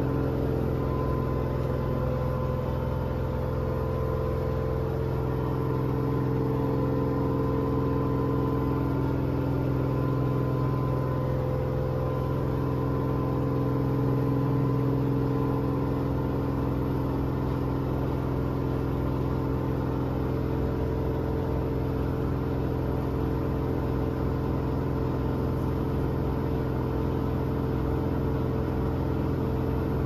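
LG front-load washing machine in its high-speed spin, the drum and motor giving a steady hum with a few steady tones above it that hold at one speed.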